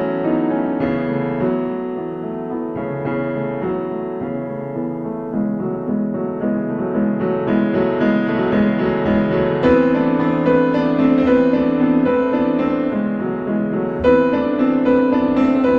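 Background piano music: held notes and chords that grow fuller and louder about ten seconds in.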